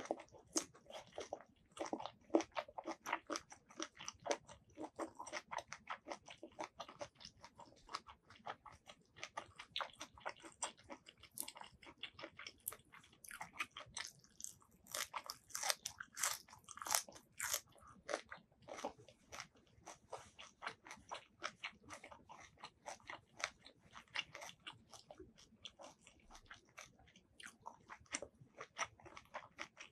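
Close-miked chewing and crunching of spicy squid salad and raw green vegetables: a continuous run of crisp bites and wet chewing, with a stretch of louder, sharper crunches near the middle.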